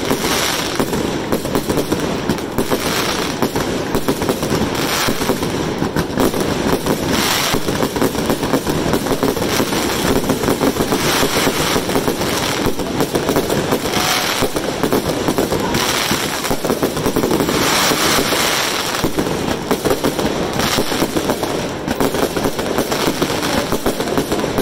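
Aerial fireworks going off in a rapid, unbroken barrage of bangs and crackling, with louder bursts every couple of seconds.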